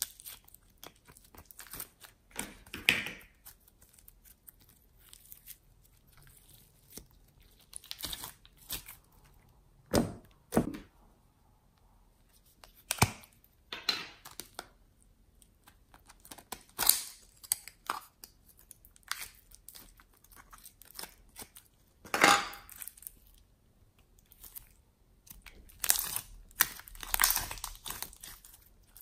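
Slime being handled by hand: scooped out of small plastic containers, squeezed from a plastic squeeze bottle and worked between the fingers. Irregular crackling, crinkling sounds come in separate bursts with quiet gaps between.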